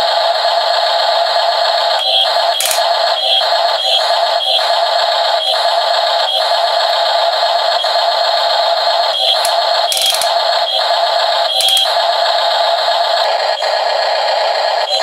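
Simulated engine sound from the Double E 1/16 RC excavator's built-in sound module, played loud through its small speaker as a steady, buzzy electronic drone. It has brief dropouts and a few short blips here and there as the controls are worked.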